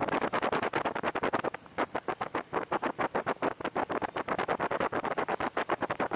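A boat under way on a river: a steady rushing noise that flutters rapidly, dipping briefly about a second and a half in.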